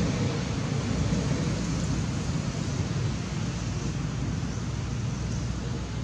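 Steady, low rushing outdoor background noise with no distinct calls or knocks.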